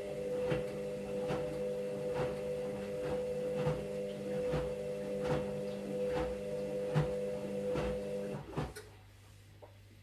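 Washing machine running: a steady motor hum with a regular knock from the turning drum a little more than once a second, all of which stops about eight and a half seconds in, leaving only a faint low hum.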